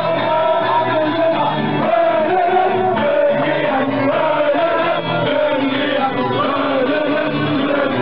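A crowd singing and shouting together over music, loud and without a break.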